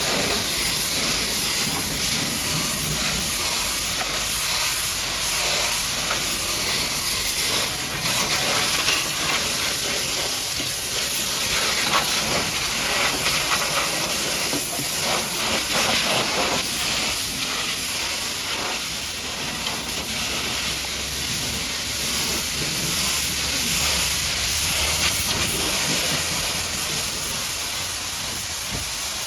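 High-pressure washer jet spraying water against a muddy truck: a steady loud hiss that swells and dips a little as the spray moves over the surfaces.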